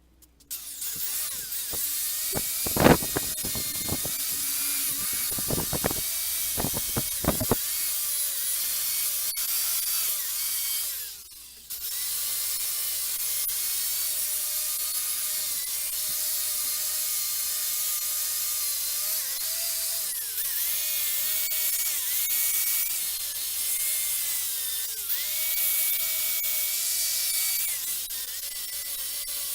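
Handheld electric power tool running with a steady whine and a hissing grind, its pitch sagging now and then as it is loaded. It stops briefly about eleven seconds in and starts again. A few sharp knocks come in the first several seconds.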